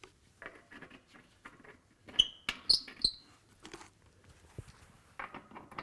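Gloved hand scooping and scraping inside a small can: faint scratches and rustles, with a few short sharp squeaks about two to three seconds in.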